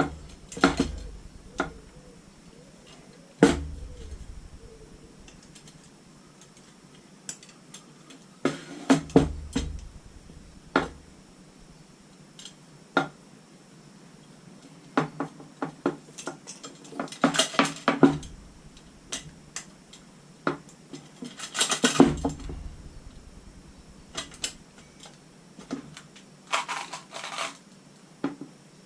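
Steel wire spokes of a Velocette Venom wheel clinking and knocking against each other, the hub and the rim as they are worked into place while the wheel is laced. The metallic taps and clicks come irregularly, with a few denser bursts of rattling in the second half.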